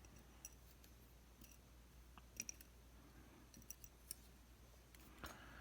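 Faint, scattered light clicks of small metal lock parts being handled: the sliders and plug of a disassembled Lockwood MT5+ lock. The clicks come singly, about a second apart, over near silence.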